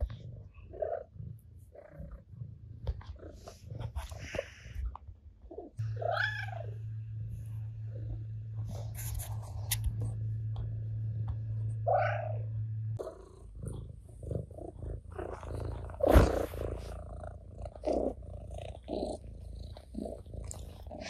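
Domestic cat purring steadily close by, with a short rising-and-falling meow about six seconds in and a sudden loud noise about sixteen seconds in.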